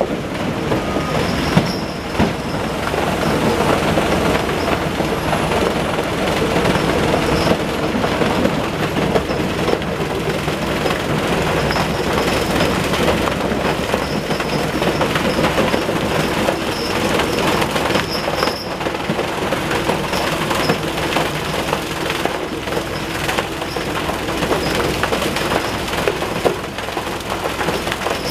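Portable rock crushing plant running, with a steady loud mechanical din and a continuous clatter of stone passing through the feeder, crusher and conveyors.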